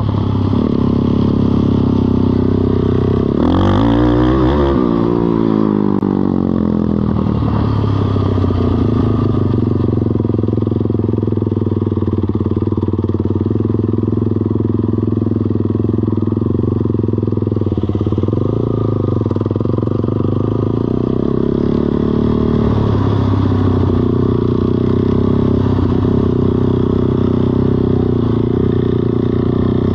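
Small single-cylinder engine of a Kymco Mongoose 90 mini ATV running steadily. Its pitch swings up and back down sharply about four seconds in.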